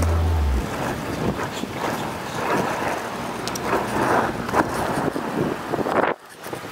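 Skateboard wheels rolling over rough asphalt, with wind buffeting the microphone. The rolling noise drops away abruptly near the end.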